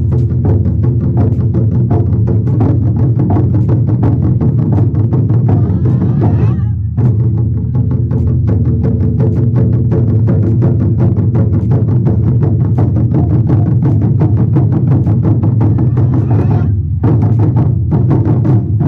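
Drum-heavy music with fast, steady drumstick strokes, about four or five a second, over a deep bass. It breaks off briefly twice.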